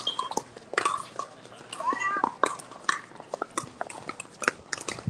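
Pickleball paddles striking a hard plastic ball: an irregular patter of sharp pops and clicks. About two seconds in comes a short squeal that bends up and down, typical of sneakers squeaking on the court surface.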